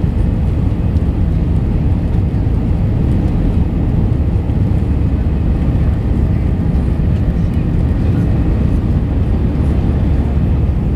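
Airbus A319 cabin noise in flight: a steady, low rumble of engines and airflow heard from inside the cabin.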